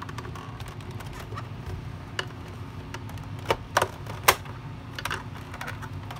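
Plastic housing of a Shark NV500 vacuum handle being pried apart with a flat-blade screwdriver: scattered clicks and snaps of plastic and clips, with a few sharp clicks about three and a half to four and a half seconds in, the last the loudest, over a steady low hum.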